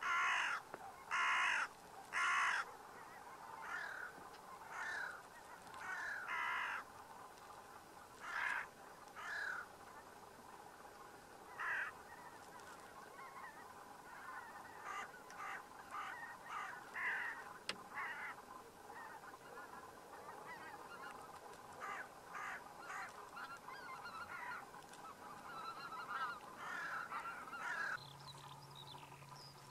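A flock of wild birds calling: three loud calls in the first couple of seconds, then many shorter calls overlapping through the rest.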